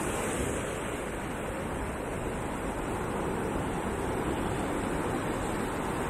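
Ocean surf breaking on a beach, a steady, even rush of waves with no single crash standing out.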